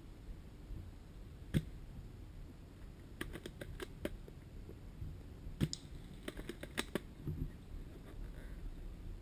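Scattered sharp clicks and snaps over a low background rumble, some single and some in quick runs of four or five.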